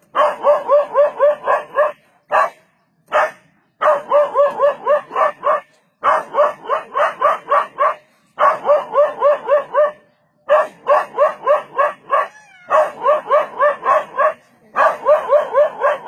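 Dog barking rapidly at a leopard, about five sharp barks a second in runs of one to two seconds with short breaks: defensive barking at the predator.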